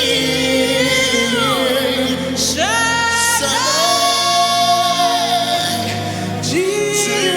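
Gospel worship music: a voice holds long, wordless sung notes that slide between pitches over sustained backing chords.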